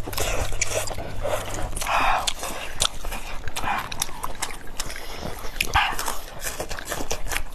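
Noodles being slurped and chewed at close range: a string of wet slurps, each a second or less, with mouth smacks and clicks between them.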